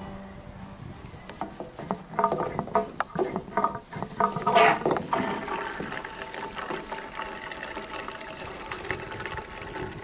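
A few knocks and clatters, then liquid pouring steadily, most likely gasoline being poured into an old truck's empty fuel tank.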